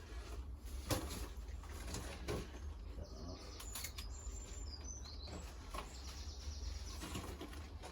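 A few sharp clicks and rustles of pruning cuts on tomato plants, with faint bird chirps and a low steady rumble underneath.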